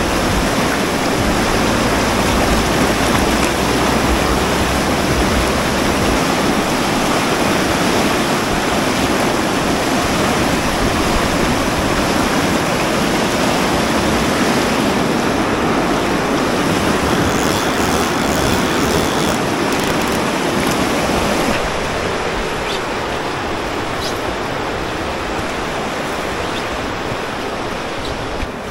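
Fast river rapids rushing, a loud steady wash of whitewater that drops a little in level about three-quarters of the way through.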